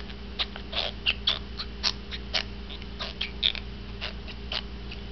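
A teething baby gumming and sucking on the handle of a plastic spoon: irregular wet mouth clicks and smacks, about three or four a second.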